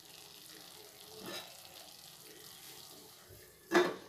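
Thick tomato-and-masala gravy simmering faintly in a steel kadai, a soft bubbling hiss, with one short louder sound near the end.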